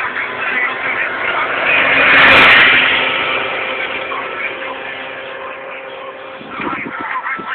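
A motor vehicle passing by: it grows louder to a peak a little over two seconds in, then fades away.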